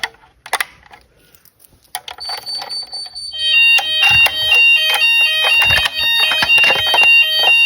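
Fire alarm sounders set off for a routine weekly system test. After a few clicks, a steady high-pitched tone starts about two seconds in, and about a second later a second sounder joins it, alternating rapidly between two pitches.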